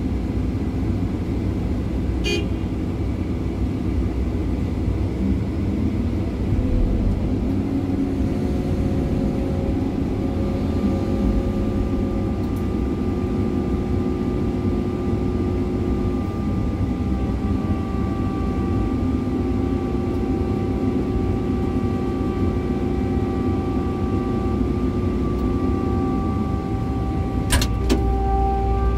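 Excavator diesel engine running steadily, heard from inside the operator's cab, with steady whining tones above the engine drone. A sharp click about two seconds in, and another near the end as the cab door is opened.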